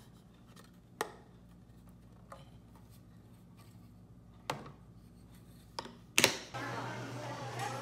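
Plastic meal-prep salad container being handled: a few sharp snaps as the fork is clipped into the lid and the lid's latches are clicked shut, then a louder knock as the container is handled on the wooden table. Near the end a steady room noise with a low hum takes over.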